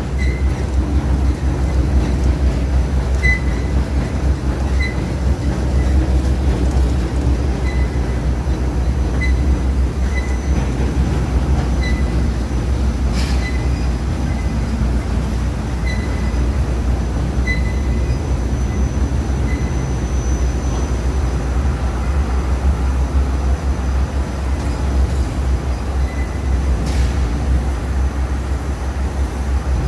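Hitech-SH10T industrial waste shredder running under load, a steady heavy rumble. Short faint high chirps recur about once a second, with a sharp knock about 13 seconds in and another near the end.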